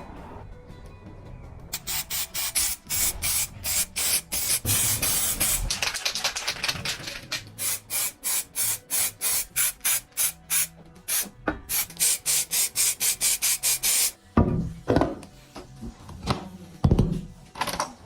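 Hand abrasive work on a rusty metal toy part, a rough rasping rubbed rapidly back and forth at about three strokes a second. About two-thirds of the way through it turns to a few slower, heavier strokes. Background music plays underneath.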